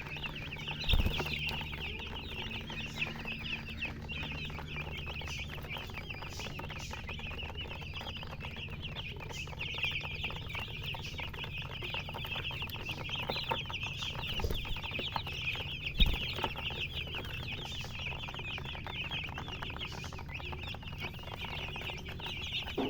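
A brood of baby chicks peeping continuously, many short high chirps overlapping into a dense chorus. A low steady hum runs underneath, and two sharp thumps come about a second in and about sixteen seconds in.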